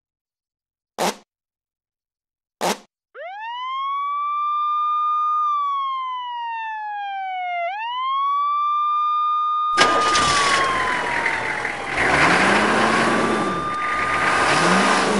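Two short clicks, then a cartoon ambulance siren: one wailing tone that rises, holds, slides slowly down and rises again. About ten seconds in, a loud rushing noise joins it while the siren keeps sounding.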